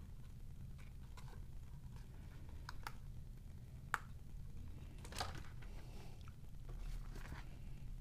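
Handling noises of a plastic toy quadcopter and its foam packaging: light clicks, knocks and rustles as the drone is set down in the tray, with a sharp click about four seconds in. Paper rustles near the end as the user manual is picked up.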